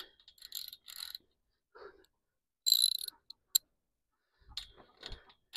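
Light metal clicks, short squeaks and knocks of a galvanized pipe fitting being handled and tightened on the coop's top rail, coming in brief scattered bits rather than a steady sound.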